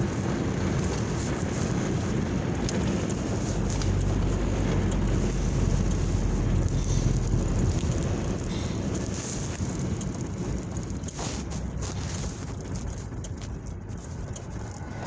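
A car running, heard from inside the cabin: a steady low engine and road rumble under an even hiss of wind or road noise, easing off a little in the last few seconds.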